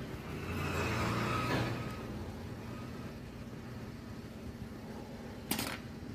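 A motor vehicle going by, its sound swelling and fading over the first two seconds, over a steady low background hum. A single sharp click about five and a half seconds in.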